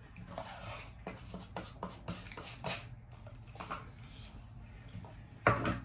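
Baked beans being scooped out of a paper cup with a utensil onto a plate: soft scrapes and small clicks throughout, with a short louder sound near the end.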